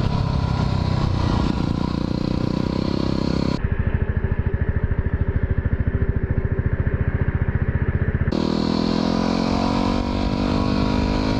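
Yamaha WR250R single-cylinder four-stroke dual-sport engine under way, rising in pitch as it accelerates. After about three and a half seconds it drops to low revs with an even pulsing beat, and near the end it climbs in pitch again as it pulls away.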